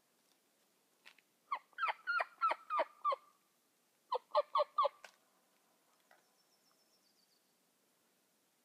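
Turkey yelps: a run of about seven yelps, a short pause, then four more, about four notes a second. Near the end, a small bird gives a faint, high, descending series of chirps.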